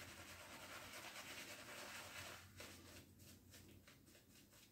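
Near silence, with a faint scratchy rubbing for the first couple of seconds that then fades out.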